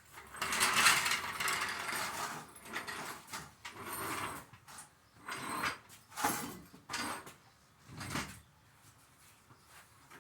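A jack being fetched and set under a chipper shredder: a series of separate scrapes, slides and knocks, some drawn out over about a second, others short.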